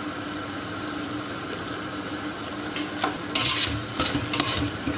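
Tomato-onion masala sizzling in a stainless steel pot as it sautés down, with a steady low hum underneath. From about three seconds in, a metal spoon stirs it, scraping and clicking against the pot.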